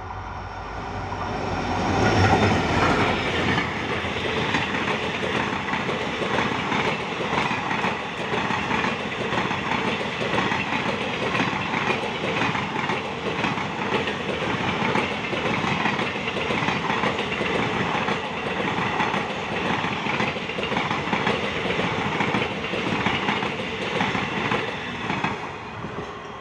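Indian Railways passenger train passing close by at speed. The rush builds to its loudest about two seconds in as the locomotive goes past. The coaches follow with a steady, rapid clickety-clack of wheels over rail joints, easing off near the end as the last coach passes.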